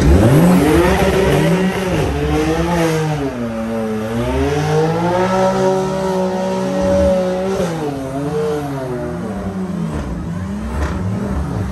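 A car engine being revved hard while stationary: the revs climb, dip, and are held high for a couple of seconds, then drop away with a few quick blips.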